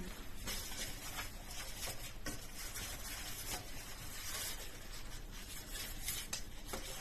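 Thin filo pastry sheets rustling and crinkling faintly as they are handled and laid into a round baking tin.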